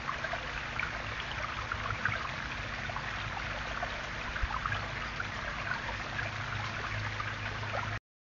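Small garden waterfall splashing and trickling over stacked stones, a steady running-water sound with a low hum beneath it.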